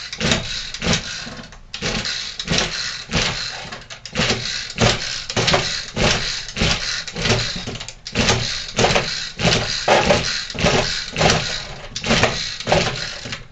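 Toro two-stroke string trimmer being pull-started again and again, the recoil starter rasping with each quick pull, roughly two pulls a second, while the cold engine never catches.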